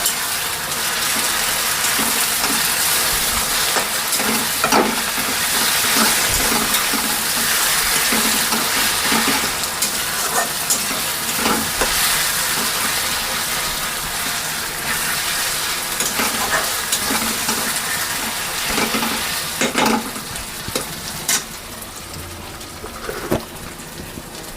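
Browned onion and ginger-garlic paste frying and sizzling in hot oil in a pan, stirred with a spoon that scrapes and knocks against the pan now and then. The sizzle dies down somewhat near the end.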